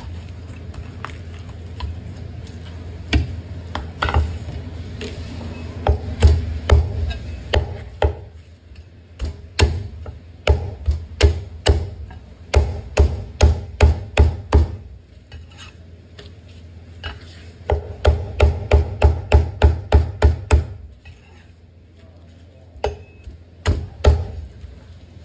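Heavy Chinese cleaver chopping through a roast bird and striking a thick round wooden chopping block, in quick runs of chops about three a second with short pauses between the runs, and two last chops near the end.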